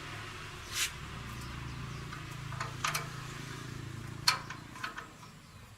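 Sharp clinks and knocks from tools and parts being handled during a starter motor repair, four or five in all, the loudest a little past four seconds in, over a low steady hum.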